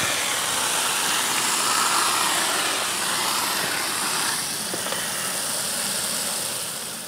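Water from a garden hose running steadily into a bucket of perlite, a loud rushing hiss as the perlite is rinsed of its white dust.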